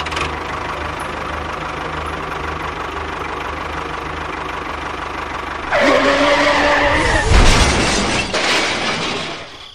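Engine sound of a model tractor running steadily with a low, even hum. About six seconds in it turns louder, with a wavering pitched tone over a heavy rumble as the tractor tips into a pit.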